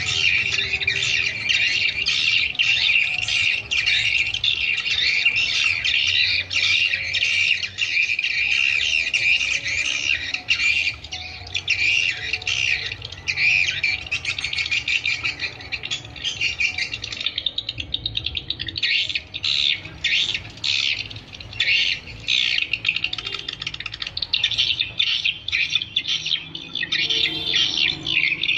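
Swiftlet twittering calls, the lure sound used to draw swiftlets to nesting houses: a dense, continuous chorus of high chirps that breaks into separate bursts in the second half.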